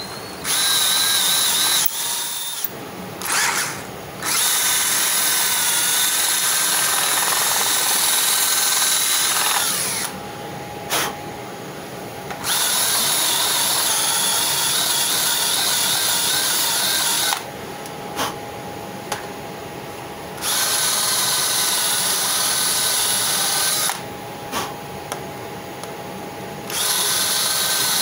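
Electric drill spinning a Brillo steel-wool pad inside a freshly painted suspension bearing bore, scouring out paint overspray so the part can go back in. The drill runs in several bursts of a few seconds each, stopping briefly in between, with a steady whine over the scrubbing.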